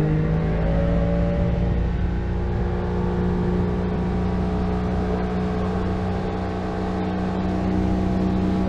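Small fishing boat's motor running under way. Its pitch rises and levels off in the first second or so, then holds steady over a rushing noise.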